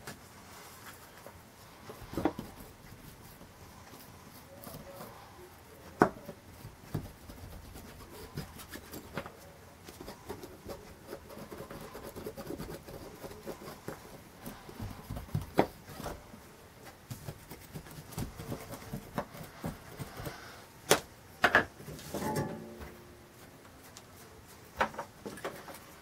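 Irregular light taps, clicks and rubbing from soldering work on a stained-glass panel, with a few sharper knocks.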